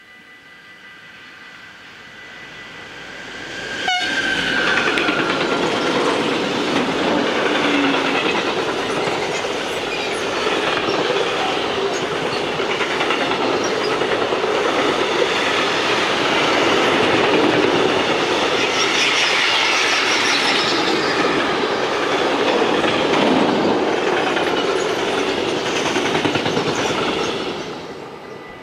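DB Cargo class 189 electric locomotive sounding its typhoon horn, a chord of steady tones, as it approaches. About four seconds in it passes with a sudden loud onset, followed by the steady noise of a long freight train's wagon wheels on the rails, which fades away near the end.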